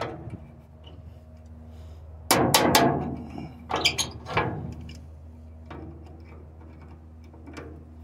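Pliers working a steel cotter pin out of the clevis on a dump-truck tailgate latch air cylinder: sharp metal clicks and scrapes, loudest in a cluster about two and a half seconds in and again around four seconds, then a few lighter ticks.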